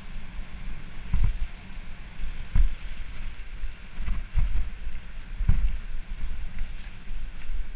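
Mountain bike riding fast down a rough dirt and rock trail: wind rumbling on the microphone, with the bike rattling and knocking hard over bumps several times.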